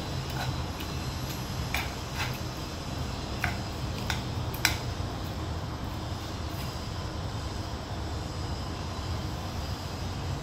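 A spoon clicking and scraping against a stone-coated frying pan as food is scooped up, several sharp taps in the first five seconds, over a steady low hum.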